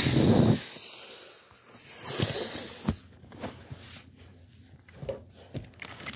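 A loud hissing rush that fades out over about three seconds, followed by faint scattered clicks.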